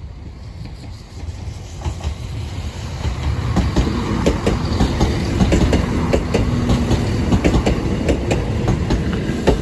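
Train passing over the level crossing: a rumble that builds from about two seconds in, then a rapid run of wheel clicks over the rail joints.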